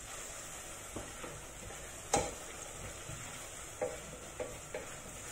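Wooden spoon stirring onions cooking in a stainless steel pot, over a steady soft sizzle, with a few light knocks of the spoon against the pot, the loudest about two seconds in.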